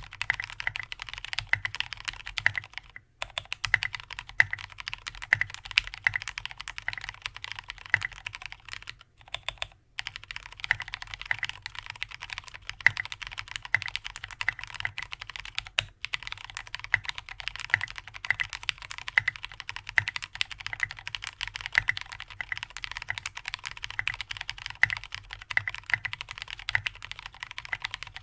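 Fast, continuous typing on an aluminium-plate custom mechanical keyboard with lubed linear Cherry MX Black switches and SA-profile keycaps, a steady run of key clacks. It breaks off briefly about three seconds in, nine seconds in, and sixteen seconds in.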